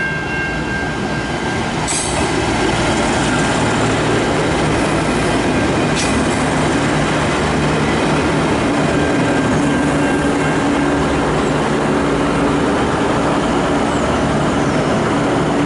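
V/Line VLocity diesel multiple unit passing close by: a steady loud rush of wheels on rail mixed with the drone of its diesel engines, building to full level about two seconds in and holding as the carriages go by.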